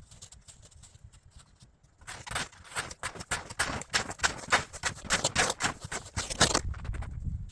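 Snow crunching and scraping in a quick run of short strokes, starting about two seconds in and stopping sharply near the end, over a low rumble.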